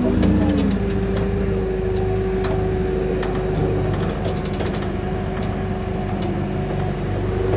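Dump hoist's hydraulic pump motor running steadily as it raises the flatbed's dump bed, with a few faint clicks over the hum.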